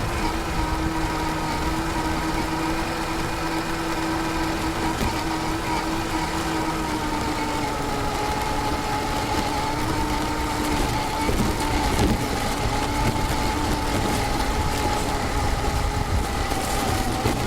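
Axial SCX10 II RC crawler's brushless motor and gears whining steadily, the pitch wandering slightly, over a continuous low rumble.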